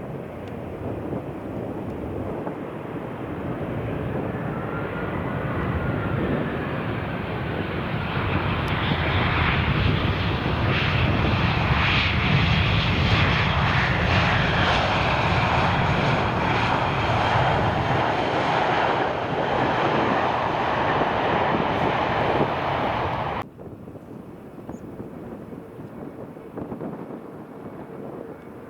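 Jet airliner's engines passing close by. The noise grows louder over the first ten seconds, holds as a loud, steady rumble with a hiss above it, then cuts off suddenly about 23 seconds in, leaving a quieter background.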